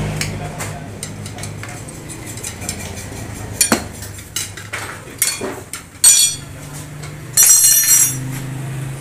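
Steel tyre levers knocking, clinking and scraping against a motorcycle wheel rim as a tyre is worked off it: a few sharp knocks, then two bursts of ringing metal clatter near the end, over a low steady hum.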